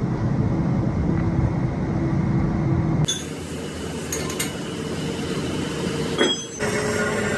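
Steady running hum and noise of workshop machinery, changing abruptly about three seconds in and again near six and a half seconds.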